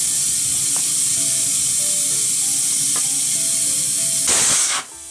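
Compressed air hisses steadily around a stretched tyre on a deep rim. About four seconds in there is a short, louder blast from a bead-seater air tank fired into the gap between bead and rim, an attempt to seat the tyre bead. It cuts off abruptly.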